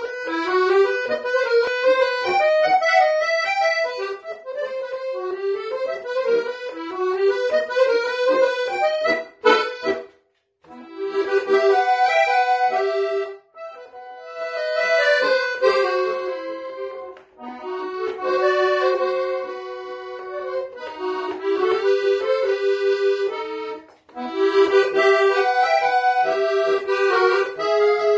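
Solo piano accordion playing a tango melody in phrases, broken by short pauses. The longest pause is about ten seconds in.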